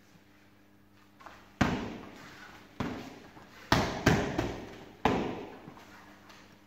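Kickboxing strikes landing on padded gloves and shin guards: five sharp smacks about a second apart, two of them close together in the middle, each trailed by a short echo.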